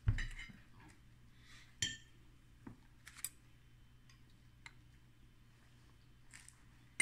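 Occasional light clinks and taps of cutlery and plates during a meal, the loudest a knock right at the start, over a faint low steady hum.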